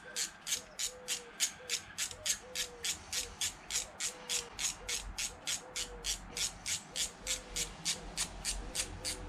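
Small socket ratchet clicking steadily as it is turned by hand, about three or four clicks a second.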